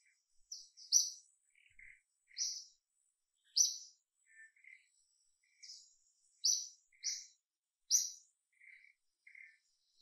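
Birds chirping in short, sharp notes about once a second, with softer lower calls between them and a faint steady high-pitched tone behind.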